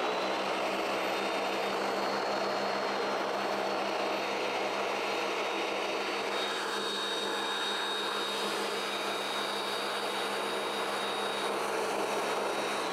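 Ninja Foodi Power Blender running steadily on its spread program, its blade grinding a thick batch of hummus in the pitcher. The motor runs with a steady high whine at constant speed.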